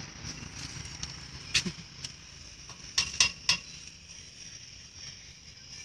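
Sharp metallic knocks on a steel gate: one about one and a half seconds in, then a quick group of three about three seconds in. A faint steady high whine runs underneath.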